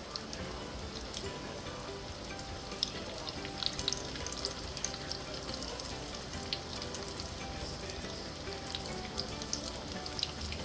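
Egg rolls deep-frying in hot oil in a cast-iron skillet, just dropped in: a steady sizzle with many small crackling pops scattered through it.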